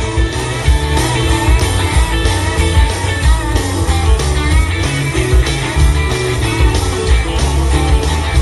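Instrumental music with guitar over bass and a steady drum beat, with no singing.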